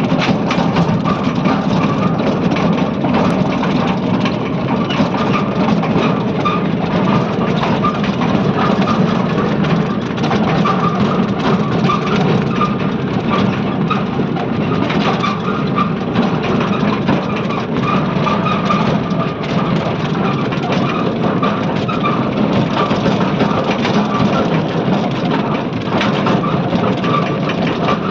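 A vehicle running steadily with a continuous low drone and dense rattling noise, which the owner presents as a body noise problem.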